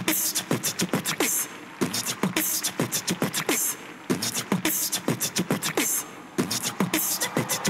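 Beatbox-style rhythm music: rapid mouth-percussion clicks, low thumps that drop in pitch about twice a second, and short bursts of hissing in an even beat.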